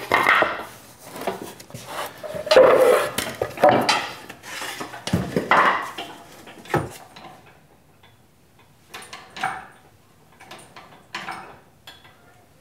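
Stacked 2x8 wooden blocks being pulled out and set down, knocking and clattering against each other and the floor. The knocks come thick and loud for the first several seconds, then thin out to a few fainter knocks.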